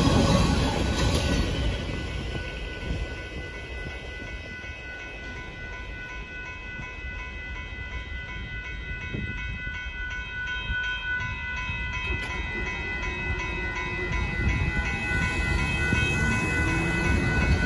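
Tail end of a Union Pacific hopper car freight train rumbling over the rails and fading away during the first few seconds. A railroad crossing warning bell rings steadily over it.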